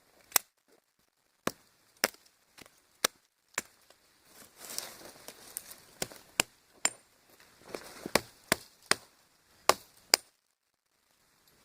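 Tomahawk chopping into wood: about fifteen sharp single strikes at an uneven pace, coming faster in the second half, with some rustling between them. The strikes stop about a second before the end.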